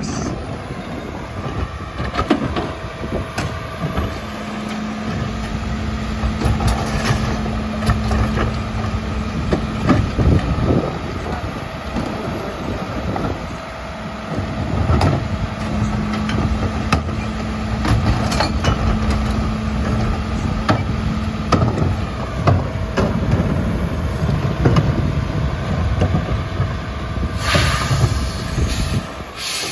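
Mack LEU garbage truck running at the curb while its split Chagnon rear-loader body packs, with a steady tone held through two long packing stretches. Plastic carts knock and bang against the hopper as they are tipped and emptied by hand, and a short burst of air hiss comes near the end.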